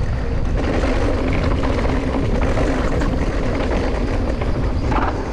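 Mountain bike rolling down a dry dirt trail: the tyres rumbling over loose dirt under steady wind buffeting on the camera microphone.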